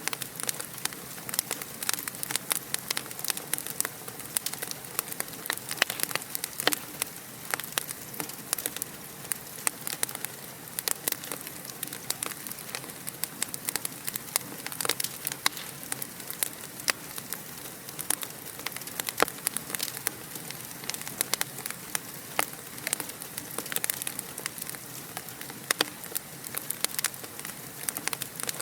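Wood fire in a fireplace crackling, many small irregular snaps and pops over a soft steady hiss.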